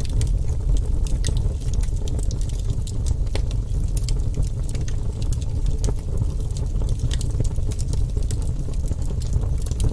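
Lit sparkler fizzing and crackling, with irregular sharp pops over a steady low rumble.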